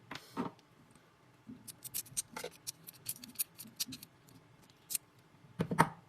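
A scatter of light, sharp clicks and taps from small hard objects being handled, with a short knock at the start and a louder cluster of knocks near the end.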